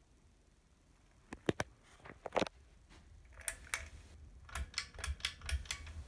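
Pull chains on a Harbor Breeze Springfield II ceiling fan being handled: sharp clicks and chain rattles, a few at first, then a quicker run of clicks in the last second and a half. The faint steady running of the spinning fan lies underneath.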